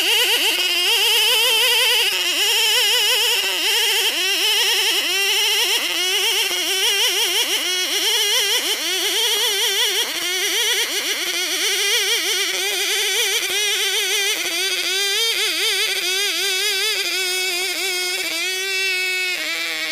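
Chinese-made copy of a Stihl 070 two-stroke chainsaw at full throttle, ripping a plank lengthwise from an ulin (Borneo ironwood) log. It revs up at the start, then holds a steady high pitch that wavers up and down as the chain loads in the cut.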